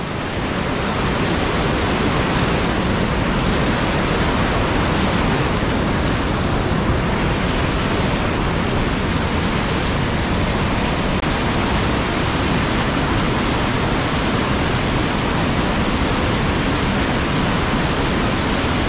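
Whitewater rapid rushing over rocks and a pour-over, a loud, steady, unbroken roar of water.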